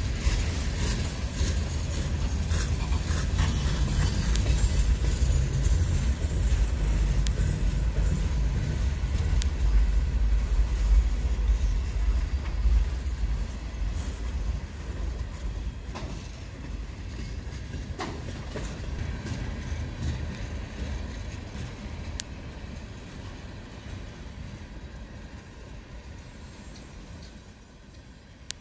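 Freight cars of a Union Pacific manifest train rolling past slowly under slow orders: a steady low rumble of steel wheels on rail, heavier in the first half and easing later, with a few sharp clicks in the middle.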